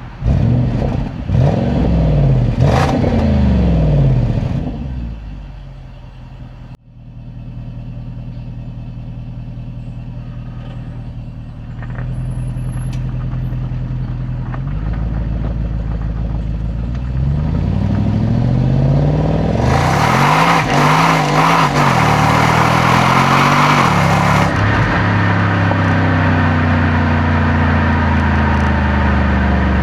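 Jaguar XFR's 5.0-litre supercharged AJ133 V8 on its stock exhaust, blipped several times in quick succession and then dropping back to idle. Later the revs climb and are held for a few seconds with a loud rushing sound, then settle to a steady raised idle.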